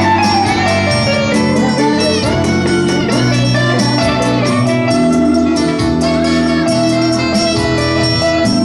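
Live music: a solid-body electric guitar played over a backing of steady beat and bass, with bent notes in the guitar line.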